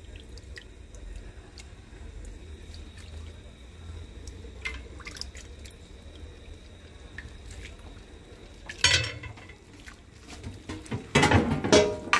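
Chicken-and-onion empanada filling cooking in its broth in a pan: faint wet bubbling and dripping, with a short louder wet burst about nine seconds in and a longer, louder cluster near the end.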